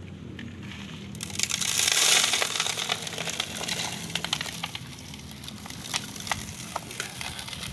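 Sand poured from a bucket into the bed of a miniature model truck: a rushing hiss that starts about a second in and is loudest just after, then thins to a lighter trickle with many scattered ticks of grains hitting the bed.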